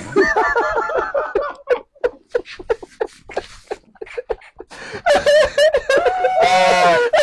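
A man laughing, first in a run of short bursts, then louder and higher-pitched near the end.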